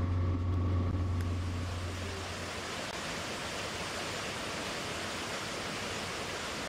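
Waterfall rushing steadily, white water pouring into a pool. Background music fades out over the first two seconds or so.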